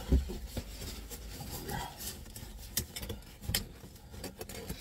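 Cardboard pizza box being handled and turned in the hands: rubbing and scraping with a few light knocks.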